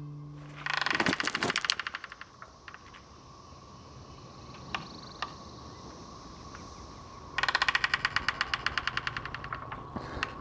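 Two bursts of rapid, even tapping, a rattling drum-roll of many taps a second. The first comes about a second in and the second near the middle to end, each starting loud and fading out over a couple of seconds. A few single clicks fall between them over a faint steady hiss.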